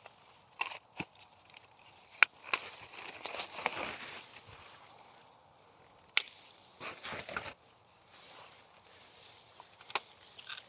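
Apples being picked by hand: sharp snaps and clicks, the loudest about two seconds in, among spells of leaf and branch rustling.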